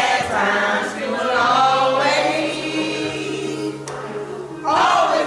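Karaoke singing: a man sings into a handheld microphone over a music backing track, with other voices singing along.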